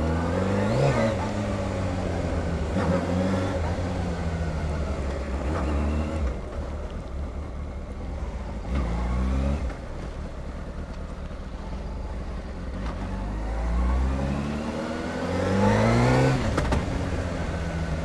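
Honda CBR600RR's inline-four engine pulling the bike along at low speed. Its pitch rises in several short bursts of throttle and falls back between them.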